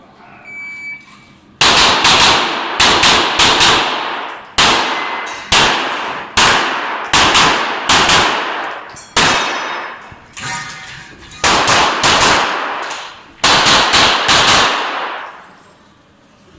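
Glock 34 9mm pistol fired rapidly in quick pairs: about two dozen shots over some thirteen seconds, with short breaks between strings, each shot ringing on in reverberation.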